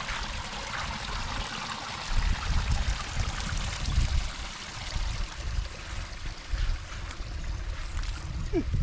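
Running stream water flowing over rocks: a steady rushing, with a low rumble underneath that swells and fades.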